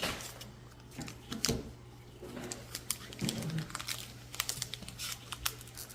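Foil booster-pack wrappers crinkling and Pokémon trading cards being handled, with many small irregular clicks and rustles.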